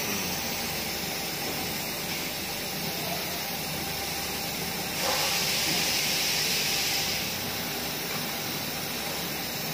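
Compressed air hissing from a workshop air hose, with a louder blast about five seconds in that lasts about two seconds, over a steady background hiss.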